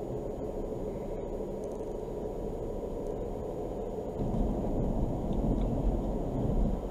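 Car's road and engine noise heard from inside the cabin as the car speeds up, a steady low rumble that grows louder about four seconds in and drops back near the end.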